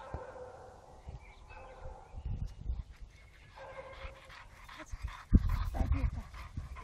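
Labrador whining, with short high yelps. Two bursts of low rumbling on the microphone, the louder one about five seconds in.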